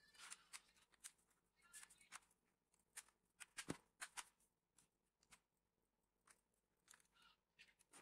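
Faint, scattered clicks and taps of the Dell laptop's plastic case and battery bay being handled during reassembly, with one sharper knock a little under four seconds in.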